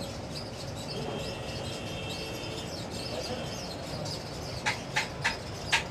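Steady background din of a small, busy eatery, a low rumble of fans, people and street traffic, with a few sharp clicks near the end.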